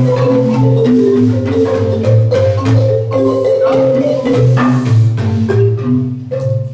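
A class of students playing marimbas together, working through the short soprano phrase C-C-B-A-G-A-A, with many overlapping mallet strikes and deep low notes ringing underneath. The playing thins out briefly near the end.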